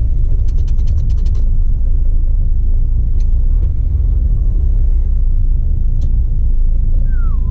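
Steady low rumble of a DAF Euro 5 truck's engine and road noise, heard inside the cab while driving. A quick run of light clicks comes about a second in, with a couple of single clicks later.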